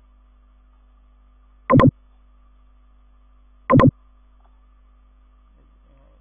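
A short electronic beep, repeating about every two seconds, over a faint steady hum.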